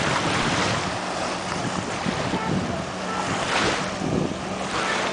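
Small waves splashing against shore rocks, with wind buffeting the microphone and two louder splashes in the second half. Under it, the steady drone of a 1989 Century 210 motorboat's engine running at speed.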